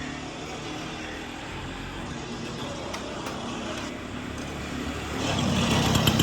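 Steady street background noise with road traffic, getting louder about five seconds in with a run of short clicks and clatter.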